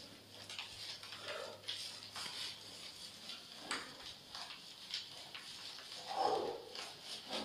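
Faint rustling and light taps from a person doing scissor kicks on an exercise mat. About six seconds in there is a short, muffled vocal sound.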